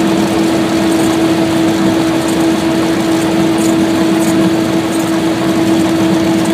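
Cessna 172's four-cylinder Lycoming engine and propeller running steadily, a constant drone with one strong steady tone.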